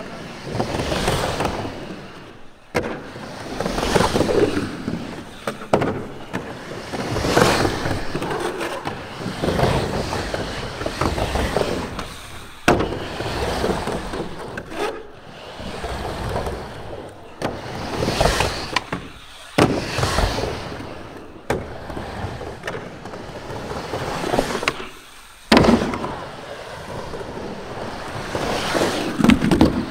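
Skateboard wheels rolling on the fiberglass walls of a drained funnel waterslide. The rumbling rises and falls with each carve up and down the bowl, and a few sharp knocks of the board come in between.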